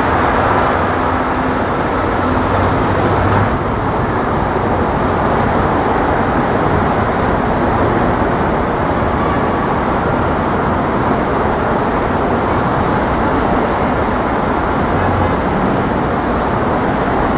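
Steady road traffic noise of a busy city street, with a vehicle engine's low hum close by for the first few seconds.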